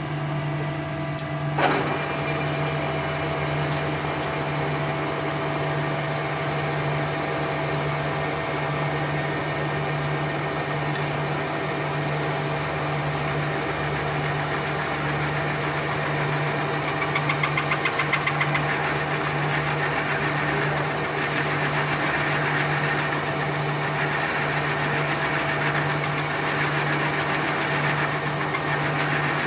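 A machine-shop machine running steadily with a low mechanical hum, just after being switched on. There is a sharp clunk about two seconds in, and a brief fast rattle about two-thirds of the way through.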